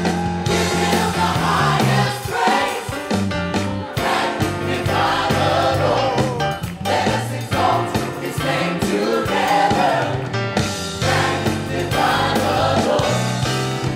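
Gospel worship song: a group of singers with microphones sings together, backed by electric keyboard and bass guitar.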